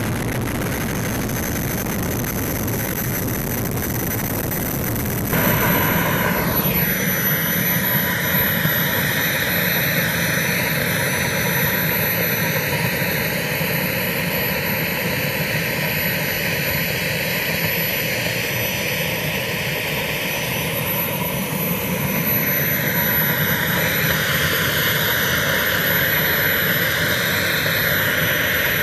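Small model-jet turbine (JetMunt M70XBL) running as the RC L-39 sits and taxis on the runway: a steady high whine over a broad rush of exhaust. About five seconds in the sound changes abruptly and a whine falls sharply in pitch. After that the whine wavers up and down with the throttle, then grows louder and brighter about three-quarters of the way through.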